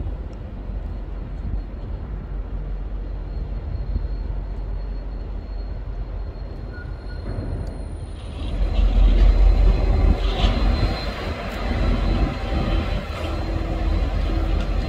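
A train passing: a steady low rumble that grows much louder about halfway through, with a spread of rattling and clicking on top.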